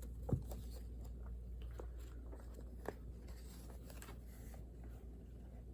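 Scattered light taps and clicks of things handled at a study desk, with a sharper knock about a third of a second in and another near three seconds, over a low steady hum.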